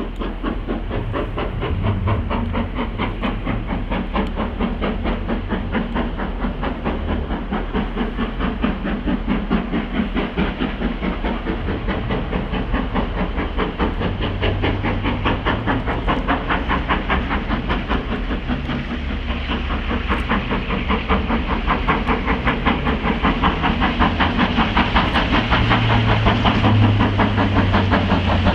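Four-cylinder GWR Castle class 4-6-0 steam locomotive 7029 Clun Castle working hard, its exhaust beating in a fast, even chuff that grows steadily louder as it approaches.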